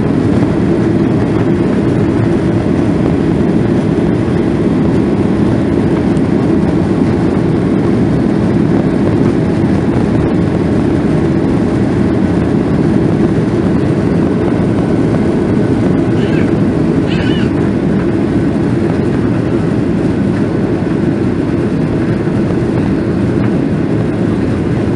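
Steady roar of a Boeing 737-900ER's CFM56-7B engines and rushing air, heard from inside the cabin over the wing as the jet climbs after takeoff. Two brief high-pitched squeaks come about sixteen and seventeen seconds in.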